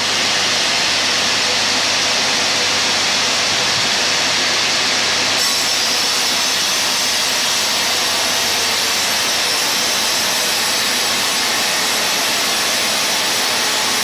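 Sawmill band saw ripping a teak plank, a loud, steady, even rush of cutting noise that holds the same level throughout.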